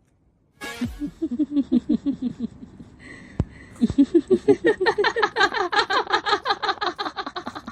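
Horror ghost-laugh sound effect. After a brief silence it starts suddenly with a low, rhythmic 'ha-ha' laugh, then from about four seconds in turns into a louder, higher cackle of rapid repeated ha's, about five a second.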